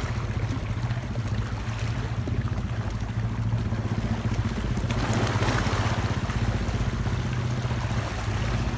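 A steady low motor drone, with wind and waves washing against the shore; a louder rush of wind or surf swells about five seconds in.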